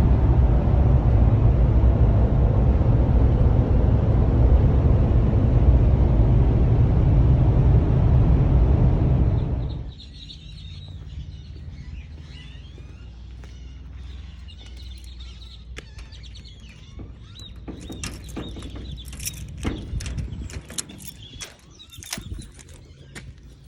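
Steady low road rumble from inside a moving vehicle, cutting off suddenly about ten seconds in. After that comes a much quieter scene with birds chirping and scattered clicks and knocks.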